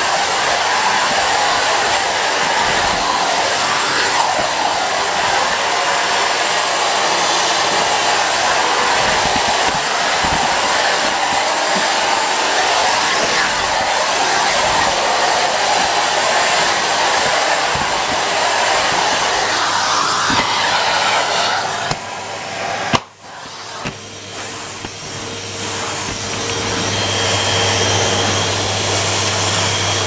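Vacuum cleaner running, its floor head pushed over a tiled hard floor: a steady rush of suction air. About three-quarters of the way through, the sound drops out for a moment, then comes back as a steadier low hum that grows louder over a few seconds.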